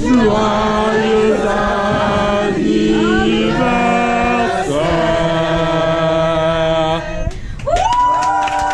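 A group of people singing a birthday song together in held notes, ending on a long drawn-out final note. Clapping breaks out near the end.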